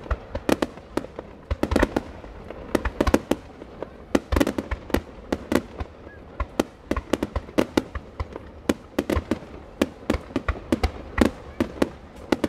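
Starmine fireworks barrage: aerial shells bursting in quick, irregular succession, several loud bangs a second.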